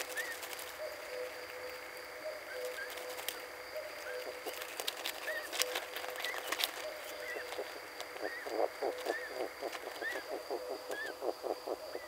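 Night-time animal chorus: steady high and low calling with short chirps every second or so. About two-thirds of the way through comes a run of rapid croaking pulses, about six a second, for some three seconds. A few clicks and rustles sound near the middle.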